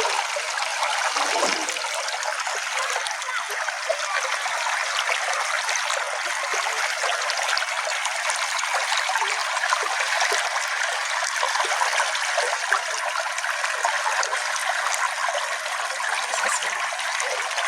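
A small stream flowing and trickling steadily over stones, an even rushing water sound with little low rumble.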